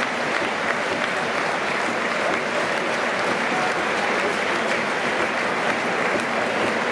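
Large football stadium crowd applauding: steady, dense clapping with no break.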